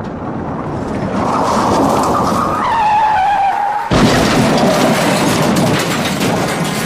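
Car crash sound effect: tyres squeal in a skid for a few seconds, the squeal sliding down in pitch, then a sudden loud impact about four seconds in, followed by clattering, crunching debris.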